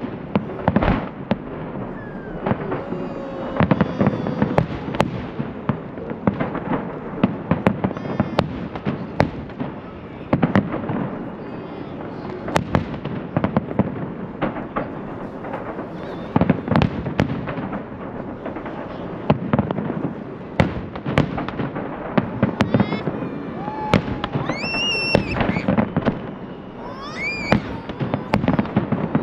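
Salute fireworks bursting in rapid, irregular succession, dozens of sharp bangs over a continuous rumble and crackle. There are a couple of high, rising-and-falling whistles near the end.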